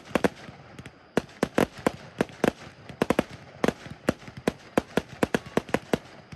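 Fireworks bursting in a rapid, irregular salvo of sharp cracks, several a second, with a short lull about a second in.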